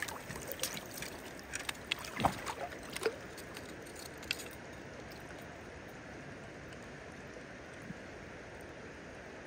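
Shallow river running steadily over stones, with a handful of short splashes and knocks in the first four seconds, the loudest a little over two seconds in, as a netted trout is handled at the water's surface.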